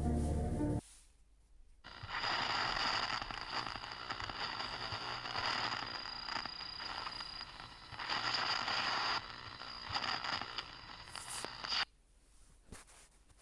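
Music cuts off under a second in. About two seconds in a crackling, hissing noise starts, with a steady high-pitched whistle tone running through it, and it stops abruptly near the end.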